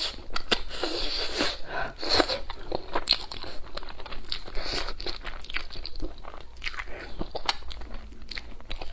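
A person eating braised pork on the bone: wet biting, chewing and lip-smacking, with a quick irregular run of small clicks and occasional crunches.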